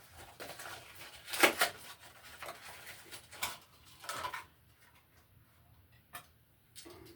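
Handling noise from a new GFCI receptacle being turned over in the hands: short rustles and light plastic clicks, the loudest about a second and a half in, then mostly quiet with a single sharp click about six seconds in.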